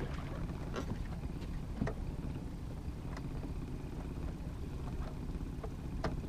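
Aluminium fishing boat moving at trolling speed: a steady low rumble of motor and water along the hull, with a few light knocks and clicks.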